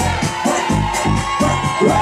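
House music playing loud over a sound system, with a steady kick-drum beat about three times a second and a held high note above it.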